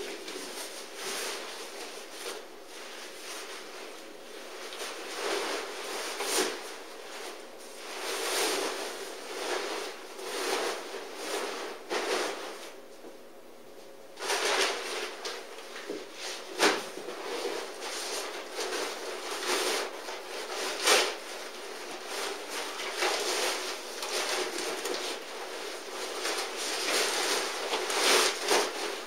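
Fabric of a pop-up camouflage tent blind rustling and swishing as it is handled, collapsed into a bundle and stuffed into its carry bag, with a brief lull a little before halfway and a couple of sharp knocks in the second half.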